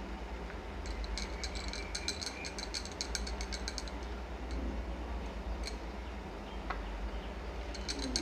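A rapid run of sharp, high ticks, about six a second, lasting about three seconds from a second in and starting again near the end, over a steady low hum.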